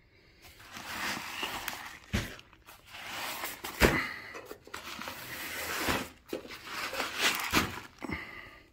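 Pellet-filled nylon shooting weight bags being handled and shifted on a steel rifle rest: rustling fabric and crunching shot, with several knocks as the bags are set down, the sharpest about four seconds in.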